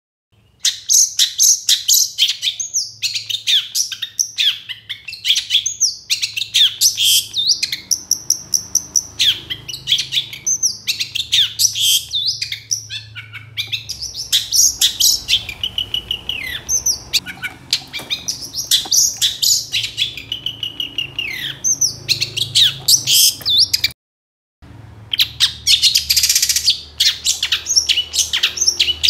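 Long-tailed shrike (cendet) singing energetically: a long, rapid run of varied short notes, scratchy chatter and whistled glides, with a harsher rasping stretch about two-thirds of the way through. The song breaks off for a moment near the end, then resumes.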